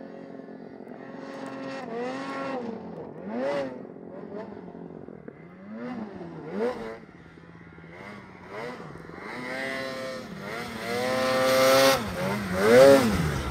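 Snowmobile engine revving up and down again and again as the sled is ridden through deep powder, its pitch rising and falling with the throttle. It gets louder near the end, with a rushing hiss over it.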